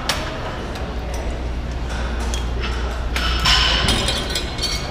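Metal gym weights clinking and knocking, several sharp clinks bunched together in the second half, over a steady low rumble.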